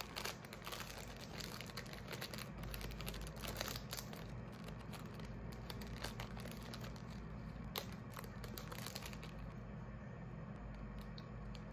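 Close, irregular crinkling and crackling of something being handled, over a steady low hum.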